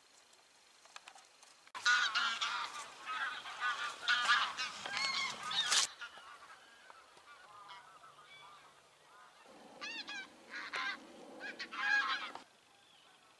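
A flock of geese honking in flight, many calls overlapping. The calling breaks off abruptly about six seconds in, carries on faintly, then comes back loud for about three seconds before cutting off near the end.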